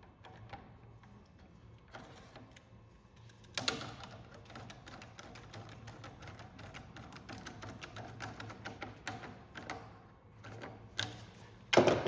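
Rapid, irregular clicking and tapping as parts and tools are handled on the oar, with a sharper knock about three and a half seconds in and a loud clack near the end.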